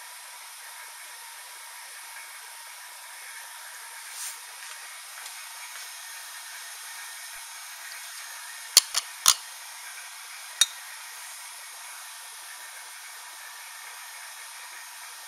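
Steady hiss, broken about nine seconds in by three sharp clicks in quick succession and one more about a second later: glassware knocking as it is handled and lifted from the vacuum plate.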